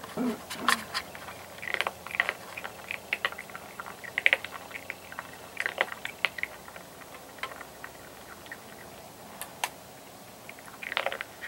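Virginia opossum eating cat food: irregular crisp crunches and clicks of chewing, coming in clusters, with a quieter stretch about eight seconds in.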